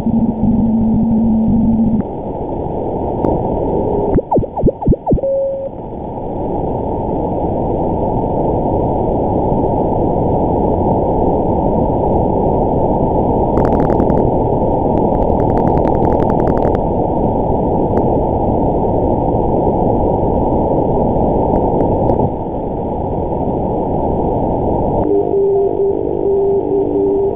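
Shortwave band static from a WebSDR receiver in CW mode around 11 MHz: a steady, narrow-band hiss. A steady tone from a data signal sounds for the first two seconds, tones sweep past briefly as the receiver is tuned across signals, and keyed on-off tones come in near the end.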